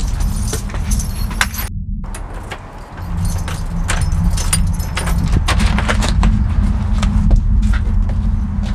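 Keys jangling with many small metallic clicks as a front-door lock is worked, over a steady low rumble.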